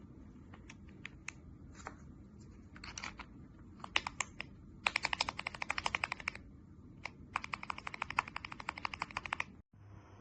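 Mechanical keyboard fitted with TTC Matrix-01 switches being typed on. Scattered single keystrokes come first, then two fast runs of rapid key presses, and it cuts off abruptly near the end.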